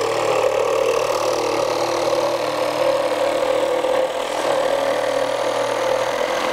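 Metabo HPT CR18DAQ4 18-volt cordless one-handed reciprocating saw, fitted with a jigsaw blade, running steadily while cutting a curve through plywood.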